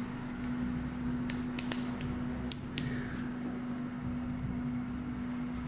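A man yawning behind his hand, over a steady hum, with a few sharp clicks or creaks in the first half.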